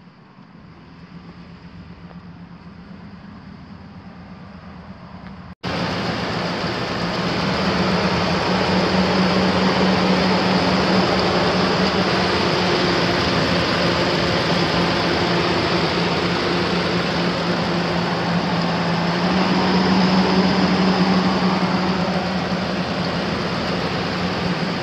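Ford F250 Super Duty pickup's 5.4-litre V8 running, a steady low hum. After a sudden cut about five seconds in, it is much louder under a broad rush of road and wind noise, as of the truck being driven, swelling twice.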